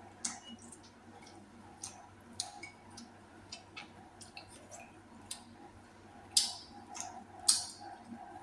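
A person eating close to the microphone: irregular, wet-sounding clicks and smacks of chewing, with two louder smacks near the end.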